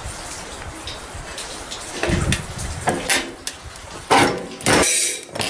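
A sheet of metal being slid and positioned on the bed of a 3-in-1 sheet-metal shear for cutting. From about two seconds in come several short, loud metallic scrapes and rattles, the loudest a little past the four-second mark.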